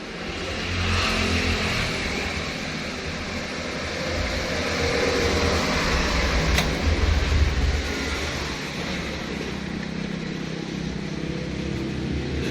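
An engine running, with a low pulsing rumble and a steady hiss over it. It grows louder about half a second in, then holds steady.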